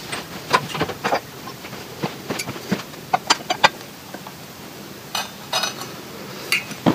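Irregular metal clinks and knocks as a homemade steel bar tool is fitted down the cylinder bore onto the crank pin of a Victa Powertorque mower engine, with a brief scrape or two.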